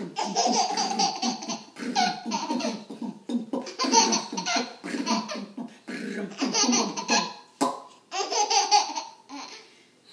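A baby laughing hard in repeated bursts with short breaks between them. A brief knock comes about seven and a half seconds in.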